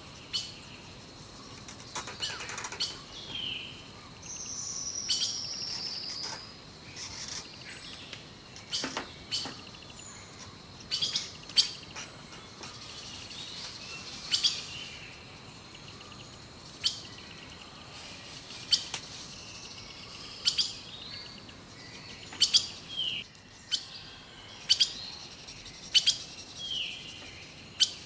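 Birds chirping and calling: short chirps, a few quick downward-sliding calls and a longer falling call about four seconds in, with sharp clicks scattered throughout.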